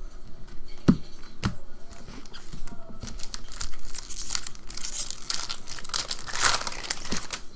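A few light clicks, then from about three seconds in a 2014 Upper Deck SP Authentic football hobby pack's wrapper is torn open and crinkled, a dense rustling crackle.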